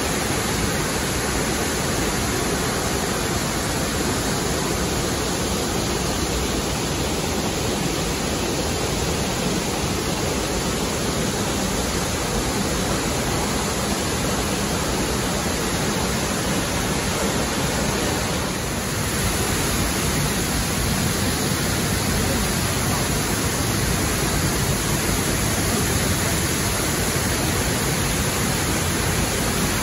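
Steady rush of Burney Falls, many streams of water plunging down a cliff into a pool, with a brief dip about two-thirds of the way through.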